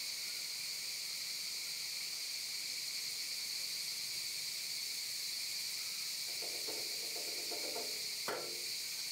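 A steady, high-pitched chorus of insects buzzing without a break. A faint pitched call or voice comes about six seconds in, followed by a single sharp click.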